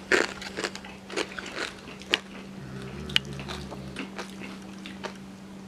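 A person biting and chewing crispy bacon, with irregular crunches close to the microphone. A steady low hum runs underneath.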